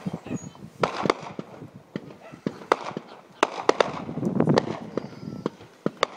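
Fireworks display: aerial shells bursting in irregular sharp bangs and pops, with a denser run of bangs and a low rumble around four to five seconds in.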